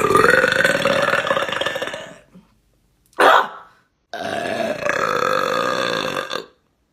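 A woman burping loudly: a long, drawn-out burp lasting about two seconds, a short sharp sound about three seconds in, then a second long burp of about two and a half seconds.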